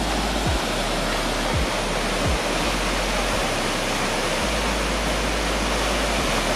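Linville Falls on the Linville River, its white water pouring through the gorge: a loud, steady rush.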